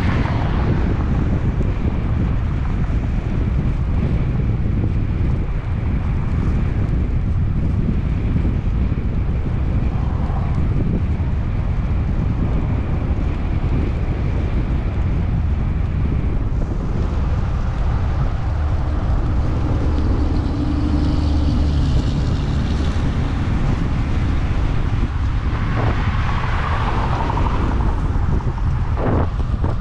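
Steady wind rush on the microphone of a camera riding on a moving bicycle, with traffic noise from cars passing on the road alongside.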